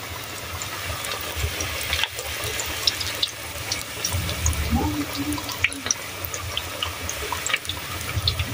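Pakoras deep-frying in hot oil in a large karahi: a steady sizzle with scattered small crackles.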